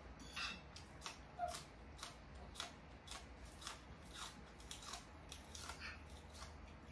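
Faint, crisp crunching and clicking of people eating, including bites into a raw green onion stalk, about two or three sharp clicks a second.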